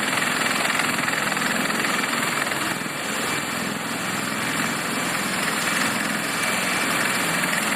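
Steady turbine engine and rotor noise from CH-53-type heavy-lift military helicopters running on the ground.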